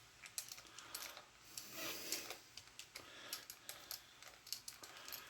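Faint small clicks and a couple of brief scrapes: a screwdriver working a tightly set screw out of a plush toy's plastic bottom plate.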